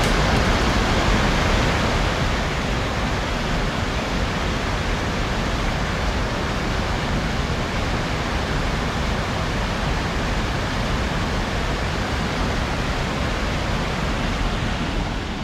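River water rushing steadily over a stepped stone weir, a dense, even sound that eases slightly about two seconds in.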